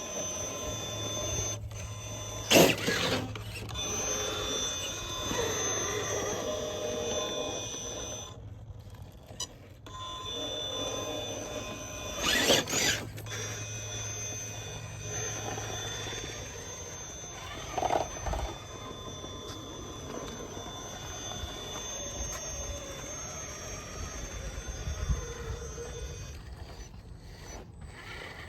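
Radio-controlled rock crawler's electric motor and gears whining steadily as it crawls, with a few sharp knocks or scrapes.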